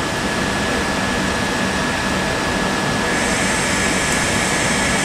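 Southeastern Class 375 Electrostar electric multiple unit standing at the platform waiting to depart, its onboard equipment giving a steady hum with a high, even whine. A hissier layer grows louder about three seconds in.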